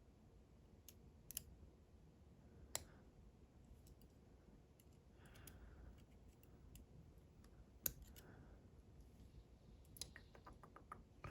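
Faint, sparse metal clicks and taps of tweezers working at a wire C-clip on a lock plug, with a quick run of small ticks near the end.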